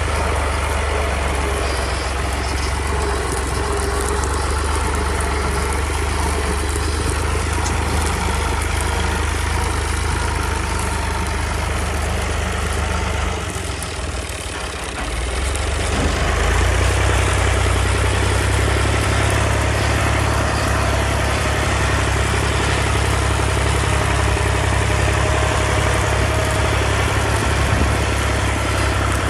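Tractor's diesel engine and a wheat thresher running steadily together, a continuous low machine drone. It dips briefly about halfway through, then comes back louder.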